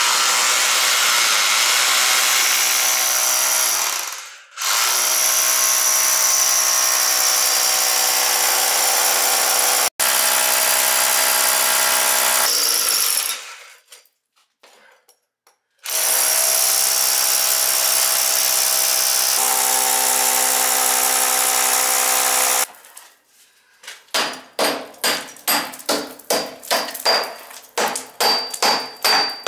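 Electric hammer drill drilling into concrete in three long runs, the motor's pitch shifting partway through the last run. Near the end come rapid ringing blows, about three a second.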